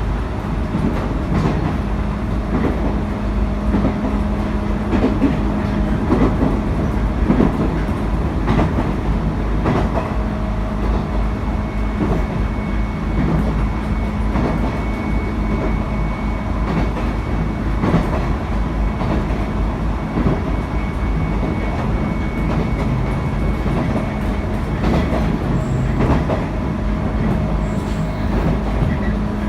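719 series electric multiple unit running at speed, with a steady hum and the regular click of wheels over rail joints. A thin high whistle sounds through the middle of the run.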